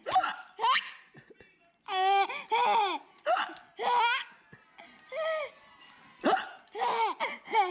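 High-pitched, squeaky laughter broken up by hiccups: about ten short bursts, each falling in pitch.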